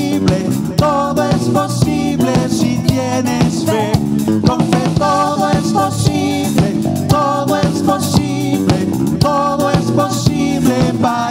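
Live band playing an upbeat instrumental break: a drum kit keeps a steady beat under electric bass and a repeating melodic riff.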